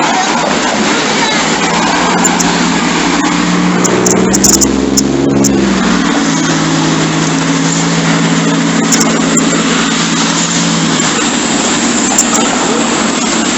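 A motor vehicle's engine running close by, pitch shifting about four to six seconds in and then holding steady until it fades near the end, over a loud, steady rushing noise.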